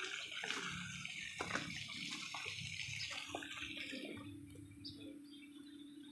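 Water running or splashing, which fades out about four seconds in, with scattered small clicks and a faint steady hum.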